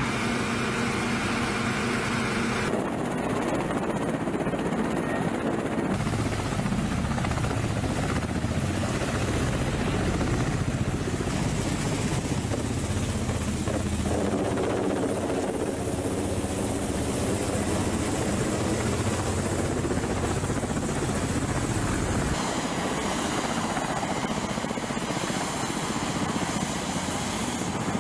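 Kamov Ka-52 attack helicopters running, their coaxial rotors and turbine engines heard across several shots. The sound changes abruptly a few times: steady engine tones over a continuous rotor noise.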